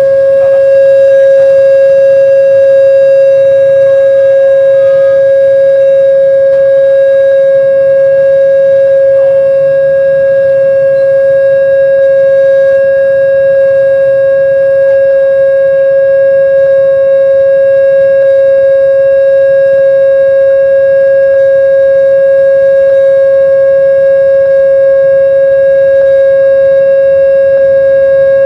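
Railway level-crossing alarm sounding a single loud, steady tone that never breaks or changes pitch. This is the fault the crossing is known for: the alarm is malfunctioning.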